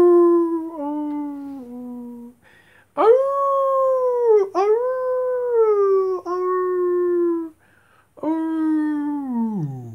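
Three long, drawn-out howls in a row, each held on a fairly steady pitch and then sliding downward. The last one falls a long way down near the end.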